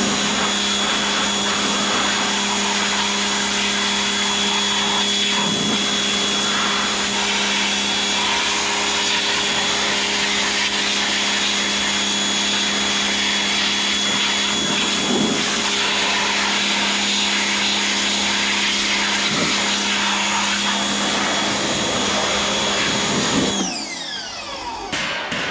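Pressure washer running steadily with a constant motor hum and hiss of spray. It shuts off near the end and its motor winds down in pitch.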